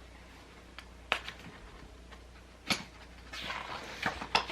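Handling of a picture book as a page is turned: a few soft clicks and knocks, then a brief rustle of paper near the end, over a faint steady low hum.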